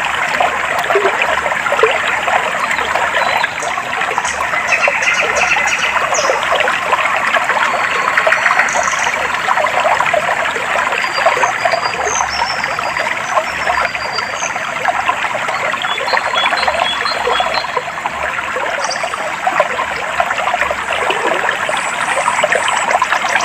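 Clear water trickling and babbling over stones in a steady, unbroken flow, with small birds giving short high chirps now and then.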